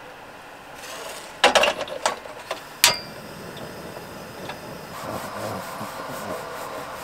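A stainless steel pot clatters with a few knocks as it is set on a portable gas stove, followed by one sharp click from the stove's igniter. A faint steady hiss from the lit burner follows.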